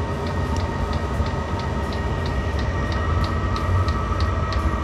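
Chinese 8 kW 12 V diesel air heater running at full power with the flame lit: a steady combustion rumble and blower-fan whine, with the fuel dosing pump ticking about three times a second.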